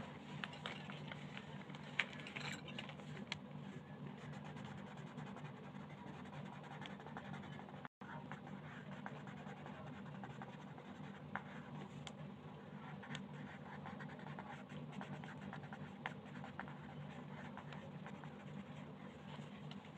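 Colored pencil scratching on paper as a page is shaded in, with scattered small ticks and a steady low hum underneath. The sound cuts out completely for an instant about eight seconds in.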